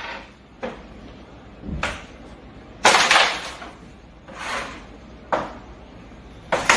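Carrom striker flicked across a carrom board, clacking against the coins and the board's frame: about six sharp clacks, the loudest about three seconds in.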